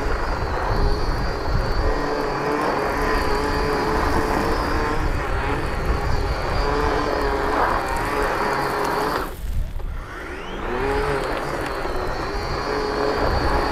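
Makita 36 V (two 18 V batteries) brushless couple-shaft power head driving a paddle sweep attachment, its rubber paddles spinning through wet grass and flinging out gravel: a steady motor whine over a rough sweeping noise. About nine seconds in it drops off briefly, then spins back up with a rising whine.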